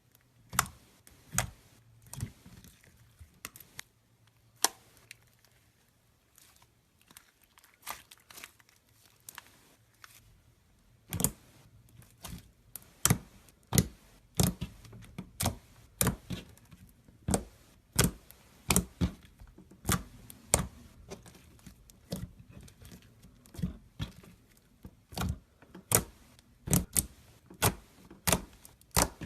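Gold slime being squeezed and pressed by hand, giving irregular sharp sticky pops and clicks with faint crackling between them. The pops are sparse at first and come about one or two a second from about eleven seconds in.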